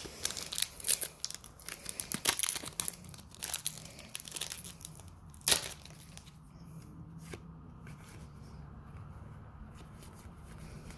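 Foil booster-pack wrapper of a trading card game being torn open and crumpled: a quick run of sharp crackles, ending with one loud crackle about five and a half seconds in.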